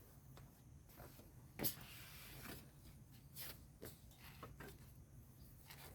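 Near silence: a faint low hum with a few soft, scattered clicks, the clearest under two seconds in.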